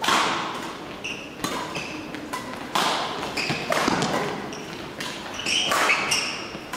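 Badminton rackets striking a shuttlecock in a singles rally: about five sharp hits a second or so apart, each echoing in a large hall, with short squeaks of court shoes on the floor between them.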